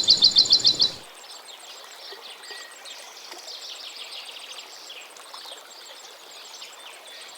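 Small songbirds calling: a loud, rapid trill of about nine high notes in the first second, then many fainter overlapping chirps and twitters.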